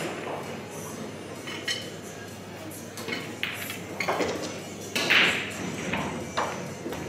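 Hall ambience with scattered clicks and knocks and faint voices in the background.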